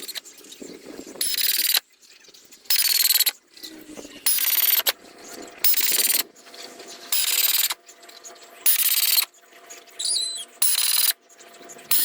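A tool working wood in regular strokes: eight scraping strokes of about half a second each, one every second and a half.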